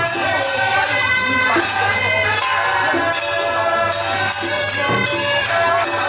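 Traditional Taiwanese temple-procession music: a shrill suona (double-reed horn) melody in held notes over steady clashing cymbals and percussion.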